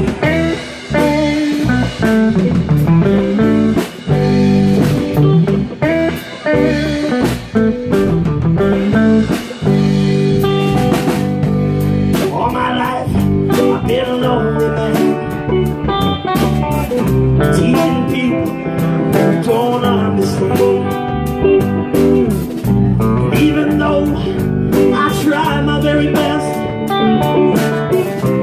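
Live band music: electric guitars played over a drum kit keeping a steady beat.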